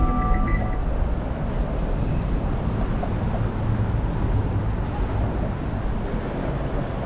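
Steady outdoor street noise of traffic, with a strong low rumble.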